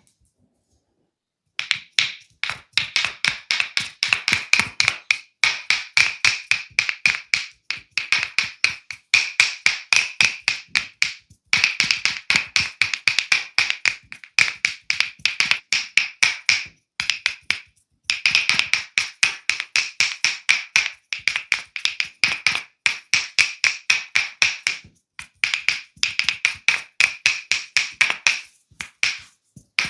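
A masseur's hands rapidly tapping and slapping in a percussive massage, fast trains of sharp crisp smacks, several a second, in bursts with short pauses, starting about a second and a half in.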